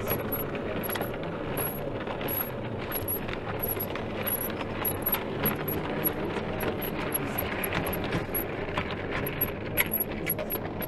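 A long model railway goods train rolling past on the layout's track: a steady rumble with many quick metallic clicks as its wagons' wheels run over rail joints and pointwork.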